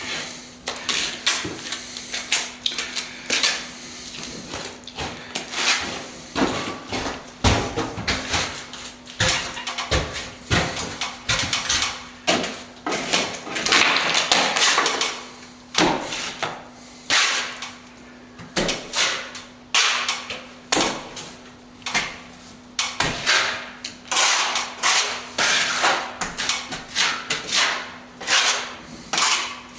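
Plastering trowel working render onto a wall repair: a fast, uneven run of knocks, slaps and scrapes, with a longer stretch of scraping about halfway through.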